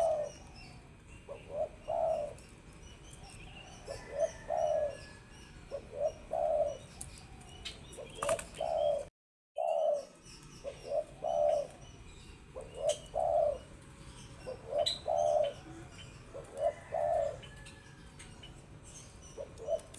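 Spotted dove (tekukur) cooing, repeating its short multi-note coo phrase every couple of seconds, with faint chirps of small birds behind it. The sound drops out completely for about half a second around nine seconds in.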